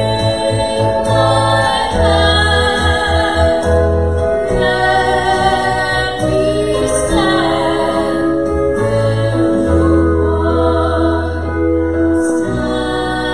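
A worship song: singing over long held bass notes and accompaniment.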